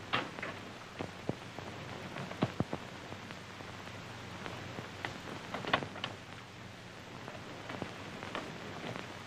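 Steady hiss of an old film soundtrack, with scattered light clicks and knocks every second or so.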